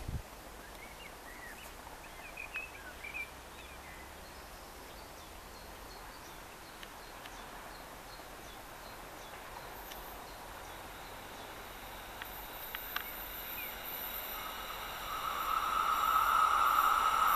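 A few bird chirps in the first few seconds over faint outdoor background. Then, in the last few seconds, the running noise of an approaching MÁV class 431 (V43) electric locomotive and its passenger train grows steadily louder, with a steady high whine over it.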